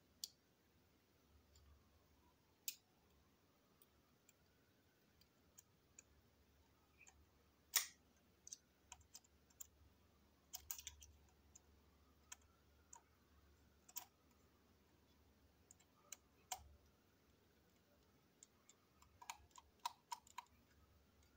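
Scattered sharp clicks and light taps of small plastic model-train coach parts being handled on a tabletop, with quick clusters of clicks near the middle and near the end; the loudest click comes about eight seconds in.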